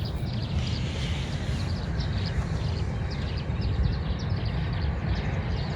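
Outdoor ambience: a steady low rumble with many short, high bird chirps scattered throughout.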